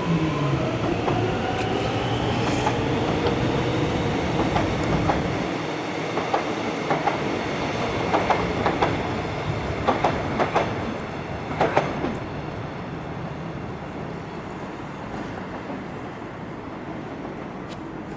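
Melbourne Metro electric suburban train pulling out: its traction motors give a rising whine as it speeds up. Its wheels then clack in quick groups over the rail joints before the sound fades away.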